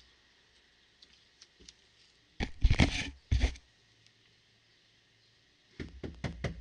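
Rustling, bumping handling noise on a security camera's microphone as something presses against or grips the camera: two loud bursts a couple of seconds in, then a quick run of small clicks near the end.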